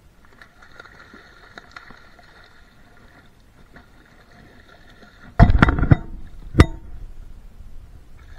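Fishing reel being cranked in, a faint steady whine. About five seconds in there is a loud clatter of knocks lasting about half a second, and a single sharp knock a second later.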